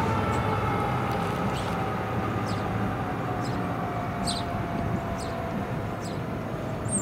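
Fire truck siren holding a steady tone that slides slowly down in pitch, over the low rumble of the truck's engine and traffic.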